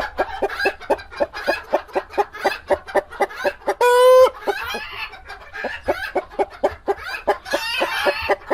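Several hens clucking in a hen house: a quick, steady run of short clucks, about three to four a second, with one loud drawn-out call about four seconds in.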